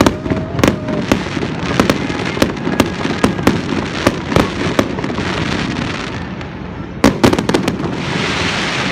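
Aerial firework shells bursting: a quick series of sharp bangs, about two or three a second, then a tight cluster of bangs about seven seconds in, followed by a dense crackling hiss near the end.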